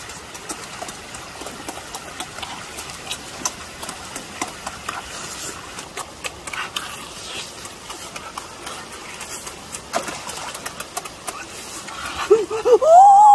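Eating sounds: chewing and lip-smacking heard as many short clicks over a steady rushing background from a shallow stream. Near the end a person lets out a drawn-out vocal exclamation that rises and falls in pitch.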